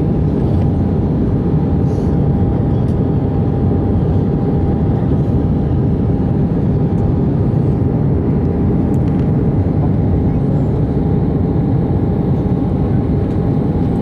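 Steady rush of engine and airflow noise inside an Airbus A319's passenger cabin during the descent to land, with a faint steady whine.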